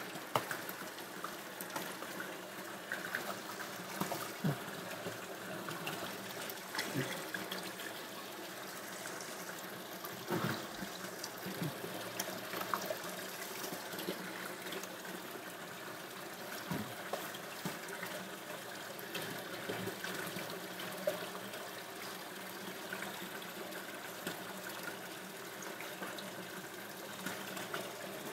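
Tap water running steadily in a thin stream and splashing into a plastic colander in a sink, with occasional short knocks and scrapes of a knife on a wooden cutting board as fish is filleted.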